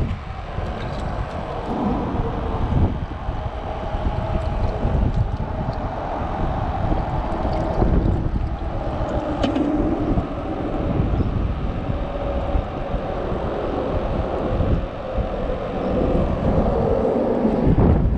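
Wind buffeting the microphone over a steady drone of road traffic that swells and fades.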